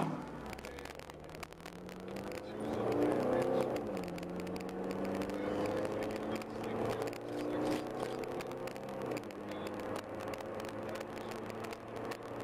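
A pickup truck's passing noise fades out right at the start. Then a vehicle engine pulls away and accelerates, its pitch climbing and then dropping back sharply twice, about four and nine seconds in, as it changes gear.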